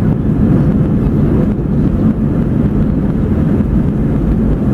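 Airbus A320 heard from inside the cabin on its takeoff run: a steady, loud, low rumble of the jet engines and the wheels rolling on the runway.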